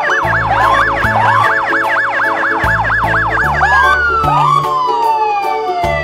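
Electronic police siren yelping rapidly, about three rises and falls a second, then a single long falling wail winding down over the last few seconds. Background music with low bass notes plays underneath.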